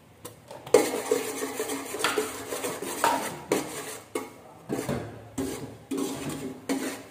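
A metal spoon stirring and scraping through a thick caramel sauce in an aluminium pot, in a run of separate strokes with clinks against the pot about every half second.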